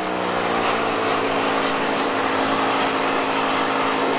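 An AR Blue Clean AR390ss electric pressure washer runs with a steady motor hum while its water jet sprays against an air-conditioning condenser's coil fins with a continuous hiss.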